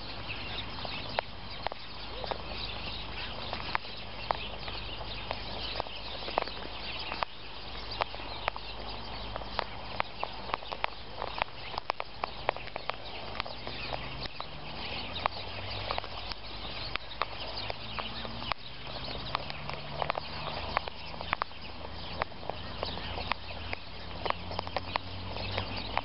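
Sulphur-crested cockatoos feeding on birdseed close by: a steady run of sharp clicks and crunches as their beaks peck at and husk the seed, with scratching footsteps on the seed, over a low steady rumble.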